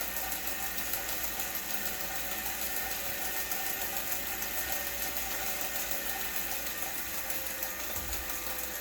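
Wahoo Kickr Core smart bike trainer running, giving a steady drone with several constant pitches layered together; this drone is the noise the owner is reporting to support as a fault.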